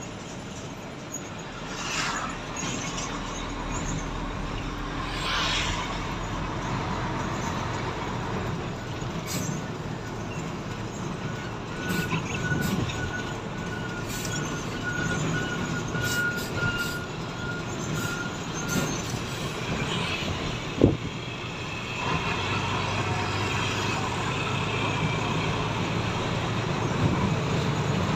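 Large truck on the move, heard from inside its cab: steady engine and road noise, with two short hisses in the first few seconds. A sharp knock comes about two-thirds of the way through.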